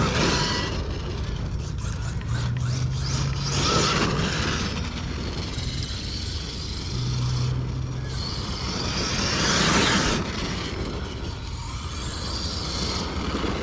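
Arrma Kraton 8S electric RC monster truck running. Its motor and tyres get louder three times, at the start, about four seconds in and about ten seconds in, as it speeds up or passes.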